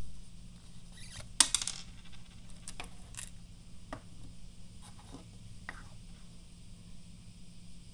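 Small chocolate-coated candies clattering out of a cardboard snack tube onto a wooden table: a short sharp rattle about a second and a half in, then scattered light clicks and taps as the candies, tube and cap are handled and set down.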